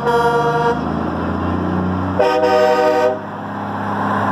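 Semi trucks' air horns blasting: one blast cuts off under a second in, and another, about a second long, sounds a little after two seconds, over the steady low rumble of diesel engines rolling past.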